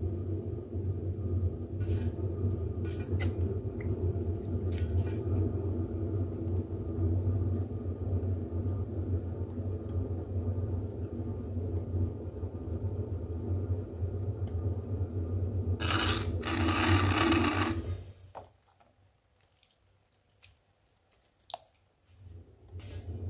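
Electric potter's wheel motor running with a steady low hum while a jug is thrown. Near the end a loud rushing noise lasts about two seconds. The hum then cuts out for a few seconds, with a few faint clicks, and comes back just before the end.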